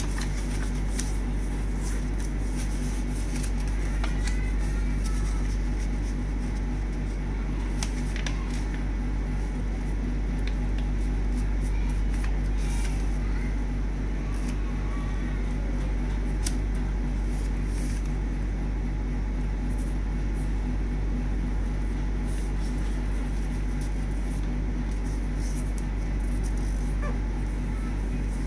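Sheets of paper being folded and creased by hand, giving light scattered crinkles and taps over a steady low hum.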